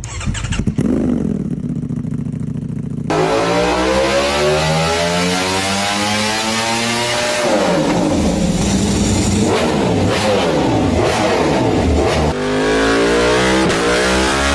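High-performance engines revving hard in a series of short cut-together clips. The pitch climbs in long sweeps as they accelerate, then rises and falls in quick blips, with a sudden change of sound about 3, 7.5 and 12 seconds in.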